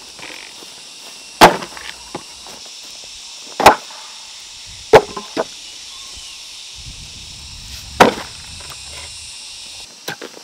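Four sharp chopping blows at uneven intervals, each followed by one or two lighter knocks, over a steady high hiss.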